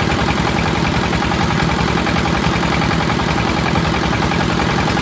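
Engine of a motor-driven water pump running steadily at a constant speed, with an even, fast low pulse.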